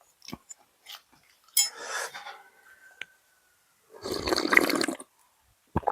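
Slurping hot noodle soup, with small clinks of a spoon or bowl: a short slurp about a second and a half in and a longer, louder slurp about four seconds in.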